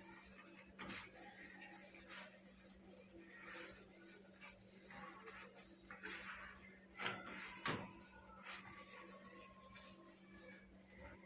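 Quiet cooking sounds: a few sharp clinks and knocks of a utensil against a pan, the loudest two close together late on, over a steady faint hiss.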